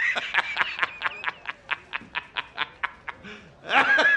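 A man laughing hard: a high, drawn-out shriek of laughter that breaks into rapid ha-ha pulses, about five a second, which fade. A fresh loud burst of laughter comes near the end.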